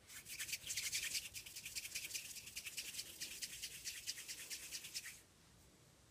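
Hands rolling a ball of polymer clay between the palms: a fast, even run of rubbing strokes that stops about five seconds in.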